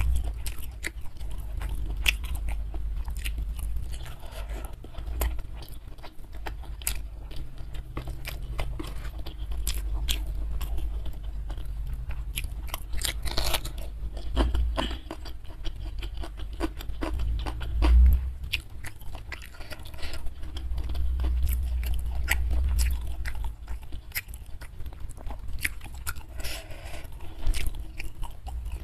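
Close-miked eating of fried patin (pangasius catfish) with sambal and raw green chilies: steady biting, chewing and crunching with many small wet mouth clicks, and a louder low thump about two-thirds of the way through.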